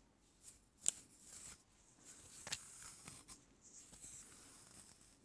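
A comb drawn through short hair and over the scalp close to the microphone: a soft, scratchy rasp with a few sharper scrapes, the loudest about a second in.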